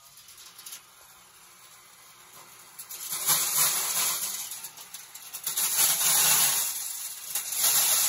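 Small electric corn sheller running, starting about three seconds in, loud and rattling as ears of corn are fed in and the kernels are stripped from the cobs; it swells and eases about three times as each ear goes through.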